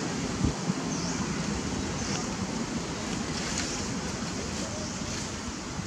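Wind buffeting the microphone in a steady rushing noise, with faint high chirps now and then and a brief thump about half a second in.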